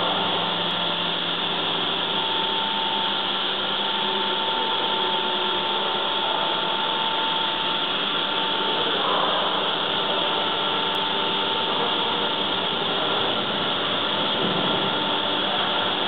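Sternal Fog low-pressure humidifier running steadily, a constant whirring hiss from its fan and water-mist spray, with a thin steady whine through the first half.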